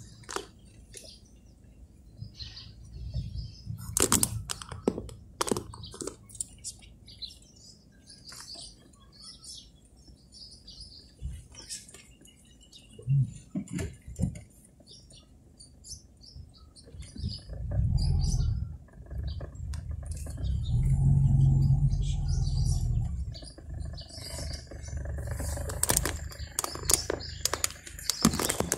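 Birds chirping on and off, with a few sharp clicks early on and a low rumble twice in the second half.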